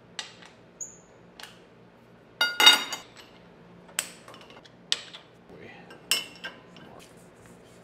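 Round steel tubes being set down and shifted on a perforated steel fixture table: a handful of sharp metal clinks and knocks, the loudest a cluster about two and a half seconds in that rings briefly. A steady low hum runs underneath.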